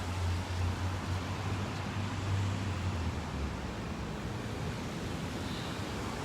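Steady city street noise: a low traffic rumble under an even hiss.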